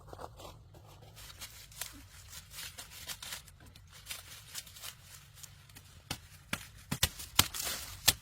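Rustling with a run of sharp cracks or knocks, which come louder and closer together in the last couple of seconds.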